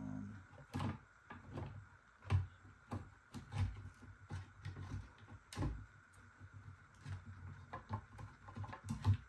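Irregular plastic clicks, taps and knocks as the cover cap of a Mercedes SL550 side-mirror housing is worked off around the mirror and its motor, with soft handling thumps between them.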